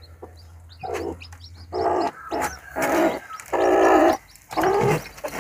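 Newly hatched chicks peeping, high and quick, throughout. From about a second in, the broody hen gives a run of loud, harsh calls as she is lifted off her nest.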